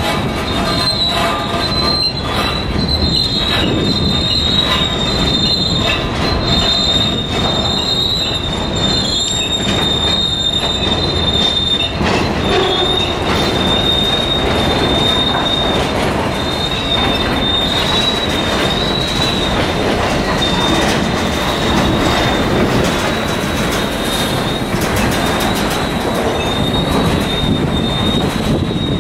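Freight flatcars loaded with concrete ties rolling past on the rails. The steel wheels give a continuous high squeal that wavers slightly in pitch, over a steady rumble of wheels on track.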